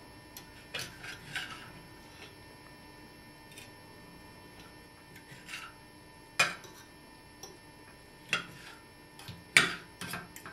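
Kitchen utensils and dishes clinking and knocking as food is handled for serving: scattered, irregular light clicks, with two sharper knocks, one a little past halfway and one near the end.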